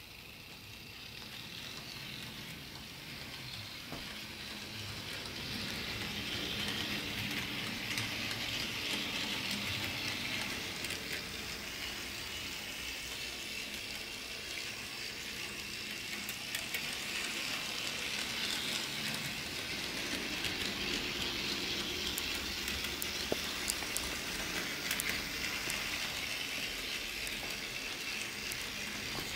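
Bachmann HO-scale John Bull model train running on its track: a steady whirring hiss from the small electric motor and the wheels on the rails, with scattered light clicks, growing louder over the first few seconds.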